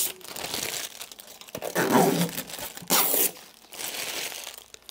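Clear plastic packaging bag being pulled off and crumpled by hand, crinkling and rustling in irregular bursts.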